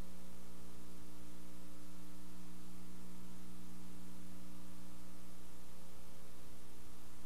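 Audio track without program sound: only a steady electrical hum with hiss, unchanging throughout.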